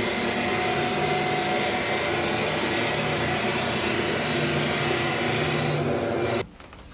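Electric walk-behind drum floor sander running and sanding bare wooden floorboards: a steady motor drone and whine over the hiss of the abrasive drum on the wood. It cuts off suddenly near the end.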